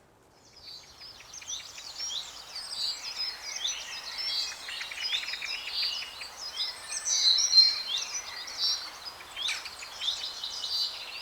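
Several songbirds singing at once, a busy mix of quick chirps, trills and short pitch sweeps, fading in over the first second.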